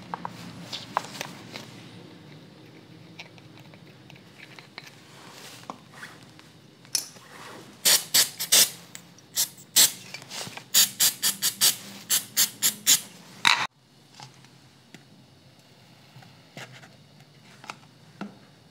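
A motorcycle inner tube and a small plastic squeeze bottle being handled. Light rustling and scattered clicks give way, about seven seconds in, to a run of loud, sharp squeaks and crackles, roughly twenty of them, that stops abruptly; faint occasional clicks follow.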